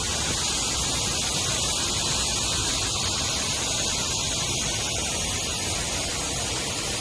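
Steady hiss with a low rumble underneath, even and unbroken, with no distinct events.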